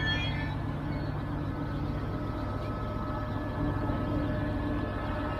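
Electric regional train standing at the platform, its onboard equipment giving a steady hum with a few held tones. A high squeal fades out right at the start, and one of the lower tones drops away about two seconds in.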